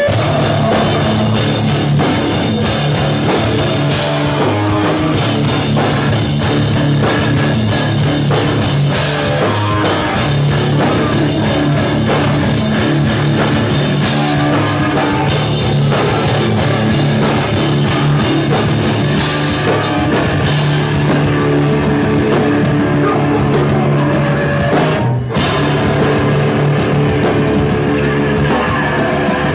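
Live hardcore band playing at full volume: distorted electric guitars and bass over a pounding drum kit. The music breaks off for a split second near the end before crashing back in.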